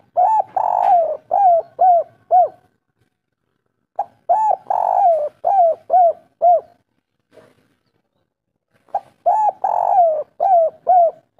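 Spotted dove cooing its song of the type hobbyists call kuk 3: three phrases, each a short note, a long note, then a string of quick notes, about two and a half seconds each, with pauses of under two seconds between them.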